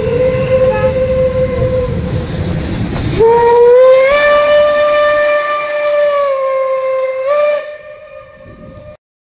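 Steam locomotive departing with its whistle blowing: a steady whistle tone over the low rumble of the train, then a louder long blast about three seconds in that slides up in pitch and is held for about four seconds. The sound cuts off abruptly near the end.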